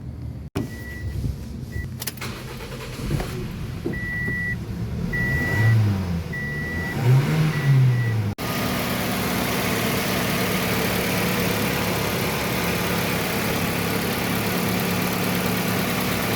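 Toyota Yaris engine revving up and back down twice while a warning chime beeps in short pulses, then, after a cut, idling steadily.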